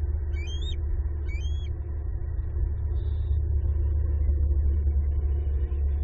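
Steady low rumble with short, rising, high-pitched bird chirps, two pairs in the first two seconds.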